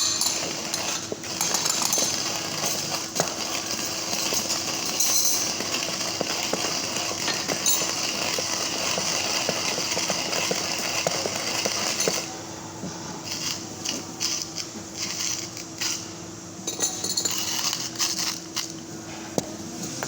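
Hario ceramic-burr hand grinder crushing coffee beans: a continuous crunching crackle of small clicks. About twelve seconds in it becomes quieter and more broken up. A steady faint hum lies underneath.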